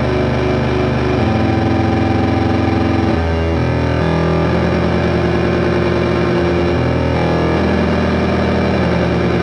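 Dungeon synth music: held synthesizer chords that change every second or two over a steady low bass.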